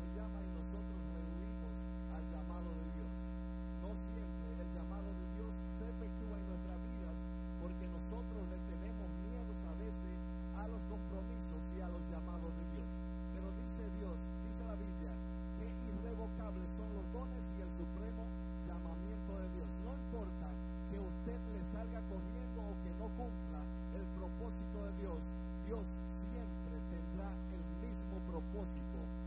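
Steady electrical mains hum with a buzzing stack of evenly spaced overtones, picked up in the church sound system's audio line, with faint wavering sounds beneath it.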